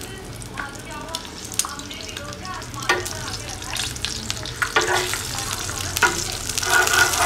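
An egg frying on an iron tawa, sizzling steadily, with a metal spoon scraping and clinking against the pan several times, more often toward the end.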